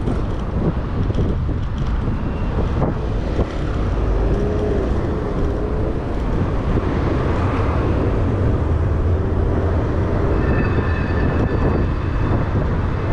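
Road traffic running beside a cycle path, heard from a moving bicycle with steady wind rumble on the microphone. A thin high whine sounds briefly near the end.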